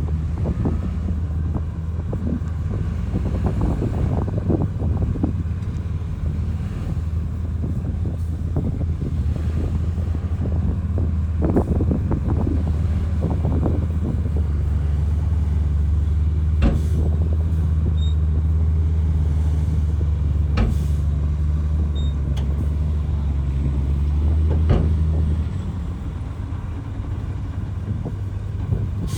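Bulldozer's diesel engine running steadily under load, with a few sharp metallic clanks. The engine throttles back near the end.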